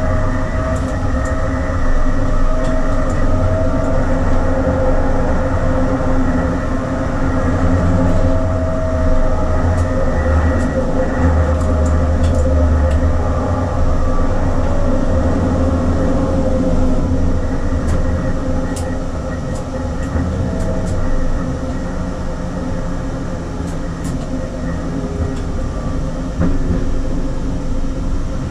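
Oslo SL95 tram running on its rails: a steady low rumble with a steady hum over it and scattered light clicks, a little quieter in the second half.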